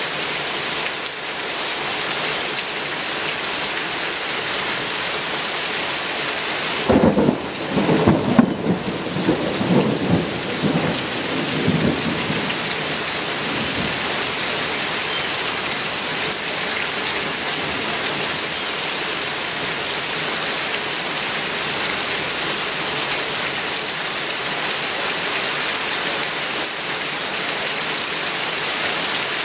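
Heavy rain falling steadily on trees and grass, a dense even hiss. About seven seconds in, a thunderclap breaks in suddenly and rumbles for several seconds before fading back under the rain.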